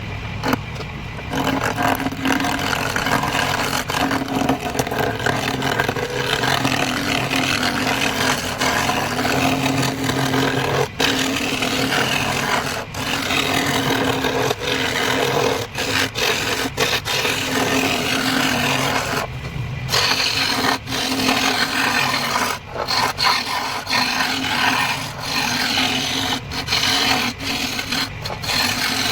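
Wood lathe running with a low steady hum while a tool scrapes against the spinning wooden vase blank. The scraping stops briefly several times, for moments when the tool is lifted off the wood.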